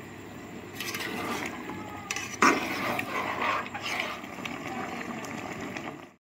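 A metal spoon stirring cut petha pieces in water in a metal pot: clinks and scrapes, with one sharp knock about two and a half seconds in. The sound cuts off suddenly near the end.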